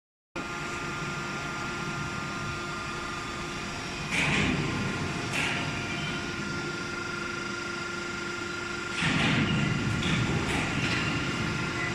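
Automatic HVAC duct line running: a steady machine hum with a few held tones. A louder noisy burst comes about four seconds in and again about nine seconds in, each followed by a shorter, weaker one.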